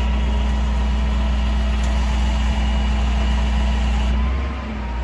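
Bucket truck's engine idling with a steady low drone.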